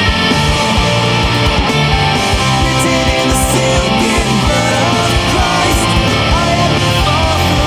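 Death metal music: distorted electric guitars over bass and fast, dense drumming, with a higher line sliding up and down in pitch.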